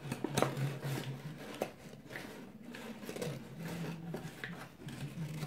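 A few light clicks and knocks of kitchen things being handled, over a faint low hum.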